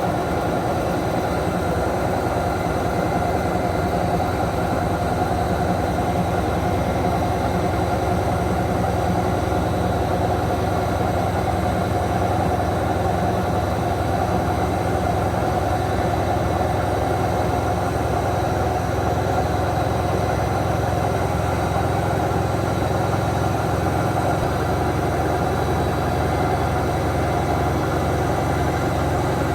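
Whirlpool Clean AWM 468 washing machine running steadily through its intermediate rinse stage: an even mechanical hum with a few steady tones, unchanging throughout.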